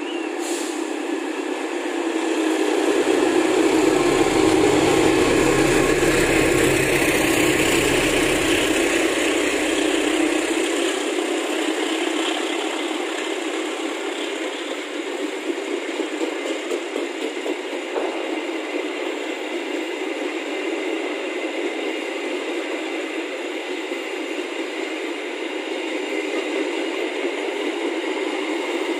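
A CC206 (GE CM20EMP) diesel-electric locomotive passes close by, its engine loudest a few seconds in. It is followed by a long train of passenger coaches rolling past, a steady noise of wheels on rails.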